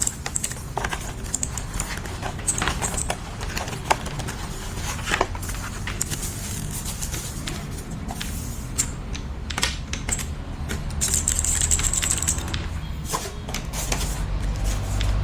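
Leaven K550 mechanical keyboard being typed on: irregular sharp key clicks over a steady low hum.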